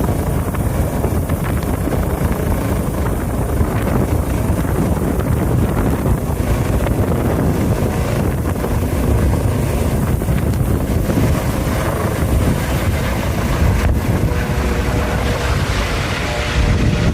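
Strong wind buffeting the microphone, a loud steady rumble, with a few faint steady tones coming in near the end.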